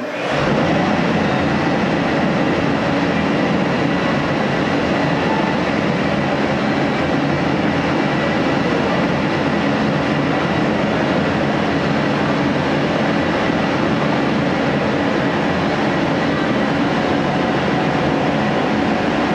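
Woodshop machinery running steadily: a loud, even rushing noise with a few faint steady tones, coming in suddenly at the start.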